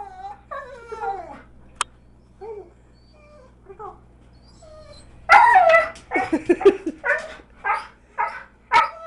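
Dog whining in high, gliding cries, then from about five seconds in a run of loud, short yips and barks about every half second.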